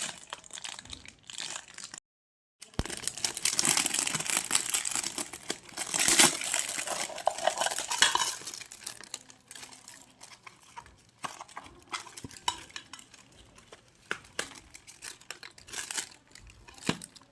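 Unboxing noises: packaging rustling and crinkling for several seconds, then scattered small clicks and knocks as the parcel's contents, a powder box, are handled.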